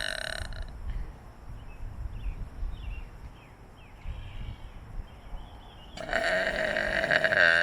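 Burping: a loud burp trails off in the first half-second, and after a few quieter seconds a long, drawn-out burp starts about six seconds in and is still going at the end.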